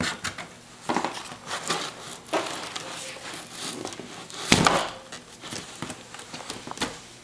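A plastic Toro leaf blower being worked down into a hole cut in a cardboard disc: a run of knocks, scrapes and cardboard crinkling. The loudest is a thump about four and a half seconds in.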